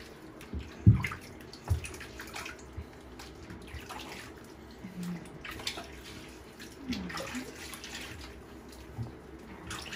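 Water splashing and trickling in a plastic infant bathtub as a baby is washed by hand. There are scattered small splashes and two dull knocks in the first two seconds, which are the loudest sounds.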